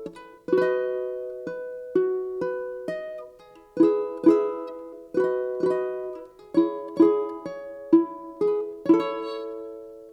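Solo ukulele playing an instrumental passage with no singing: chords struck about twice a second, each left to ring and fade before the next.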